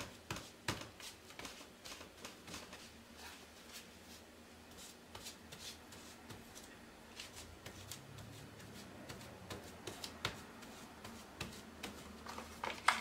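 Soft, irregular dabbing and rubbing of a small paint-loaded pad on painter's tape: quiet patting taps and light crinkles of the tape, a few each second.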